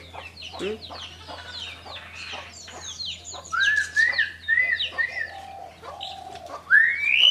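A caged hill myna calling: a string of loud whistles and chirps, with a run of five short rising-and-falling whistles about halfway through and a long rising whistle near the end.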